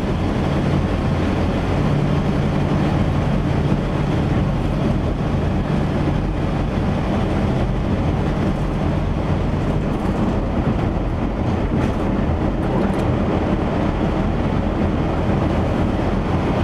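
1977 Chevy van driving, a steady engine drone with road rumble. Its exhaust is freshly repaired, with a new donut gasket, new mufflers and a new tailpipe section, so it runs quietly and no leak is heard.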